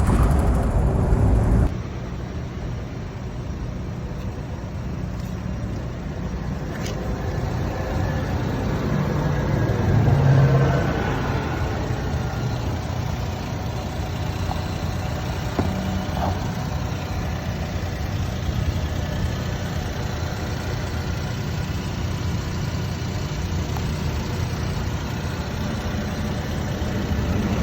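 Daihatsu Taft car running, with steady engine and road noise that swells briefly about ten seconds in.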